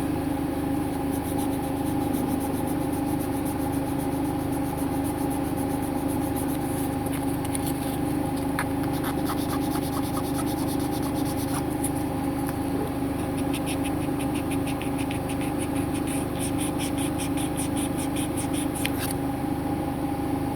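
A steady mechanical hum runs throughout, with runs of light rapid clicking and scraping between about 7 and 19 seconds in.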